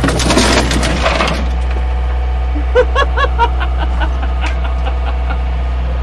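Dirt spilling from the over-curled skid steer bucket onto the cab, a dense crackling rush lasting about a second and a half, over the steady low running of the machine's engine. With self-leveling off, the bucket tipped back as the boom rose and dumped its load on top of the cab. A short laugh comes about three seconds in.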